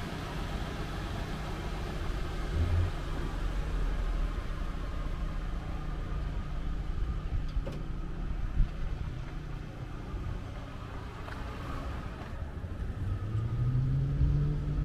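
Car engine running steadily at idle, with a single sharp knock a little past halfway. Over the last two seconds a pitched engine tone rises.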